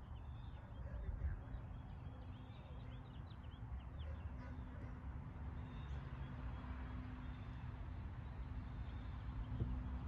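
Outdoor ambience: a constant low rumble, small birds chirping during the first few seconds, and a faint steady hum from about a second and a half in.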